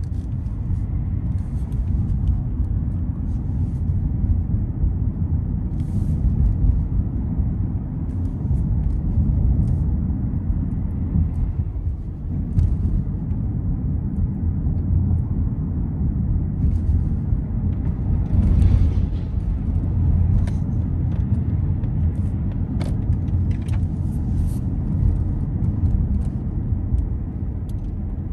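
Low, steady rumble of a car being driven on city streets: road and engine noise, with a few faint scattered ticks and a brief swell of noise about two-thirds of the way in.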